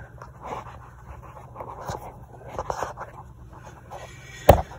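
Rustling and scraping of a handheld phone camera being worked up into the underside of a car over a steady low hum, with one sharp knock near the end.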